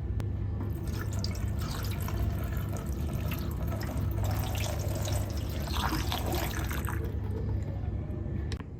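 Water running steadily, as from a tap into a sink, starting just after the start and cutting off shortly before the end.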